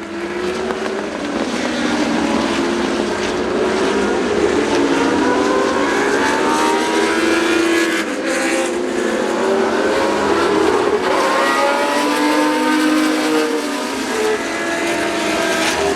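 Several historic racing car engines running hard at once, their overlapping notes rising and falling as the cars accelerate and lift.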